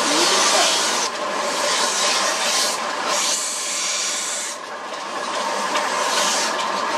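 Steel scissor blade ground against a spinning grinding wheel, throwing sparks: a loud, continuous hissing grind that dips briefly a few times as the pressure on the wheel changes.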